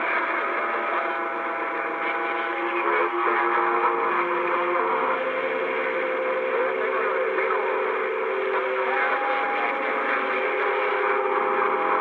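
CB radio receiver putting out a steady hiss of static through its speaker, with several steady whistling tones at different pitches that come and go and overlap.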